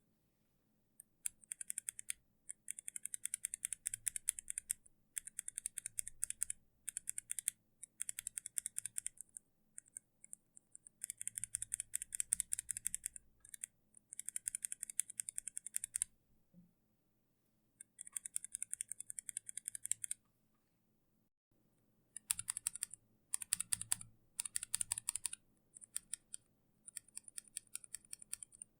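Kailh mechanical keyboard switches on a switch tester being pressed in quick succession, giving fast runs of light clicks that last a second or two each, with short pauses between.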